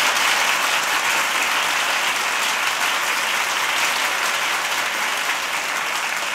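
An audience applauding: dense, sustained clapping that eases off slightly toward the end.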